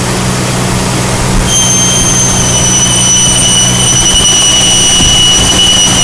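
2001 Jeep Cherokee engine running with a steady hum; about one and a half seconds in, a loud, high, tea-kettle-like whistle starts and holds, sagging slightly in pitch. The owner places it on the right side of the engine; cleaning the idle air control valve has not cured it.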